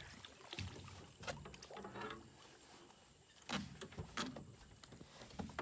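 Irregular knocks and bumps in a small boat, a handful of sharp hits spread over a few seconds.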